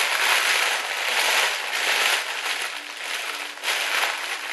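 Shiny foil wrapping of a chocolate Easter egg being crinkled and torn open by hand, crackling in uneven surges, strongest at the start and again near the end.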